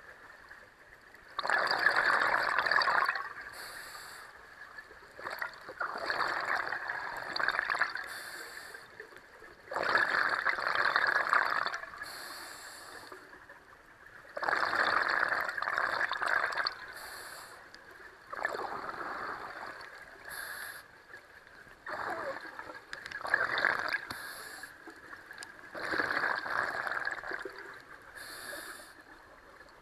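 Scuba diver breathing through a regulator: a bubbly rush of exhaled air about every four seconds, seven times, with a short high hiss of the breath drawn in between the exhalations.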